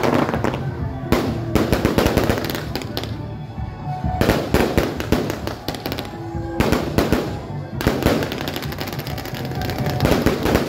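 Aerial fireworks shells bursting overhead in rapid volleys of bangs and crackles, with short lulls between volleys. Music plays underneath.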